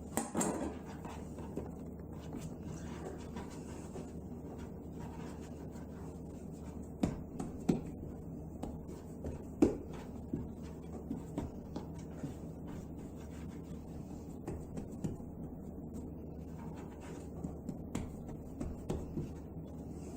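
Soft rubbing and scattered light taps of bread dough being cut with a blade and handled on a wooden board, with a few sharper knocks of the blade on the board, over a steady low room hum.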